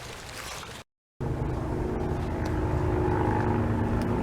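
Faint outdoor background cuts off about a second in; then a car engine runs steadily, a low hum with a few steady tones, slowly getting a little louder.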